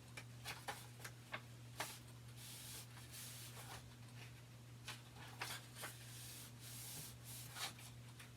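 Soft rustles and small clicks of a book being handled, its paper pages sliding and turning, over a faint steady electrical hum.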